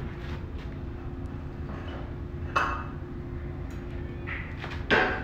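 A few sharp metallic clinks, the loudest near the end, as the steel window grill is handled and knocked against the window frame, over a steady low hum.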